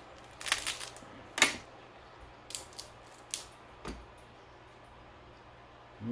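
Cooked crab shell cracking and crunching as the crab's body is pulled apart by hand: a run of sharp crackles, loudest about a second and a half in, then a few lighter clicks up to about four seconds in.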